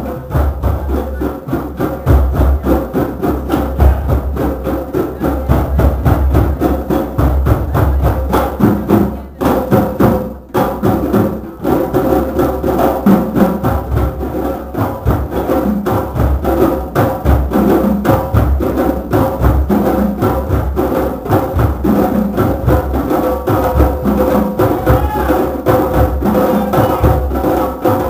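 A group of hand drums and percussion playing together in a dense, steady rhythm, with a sharp wood-block-like click cutting through.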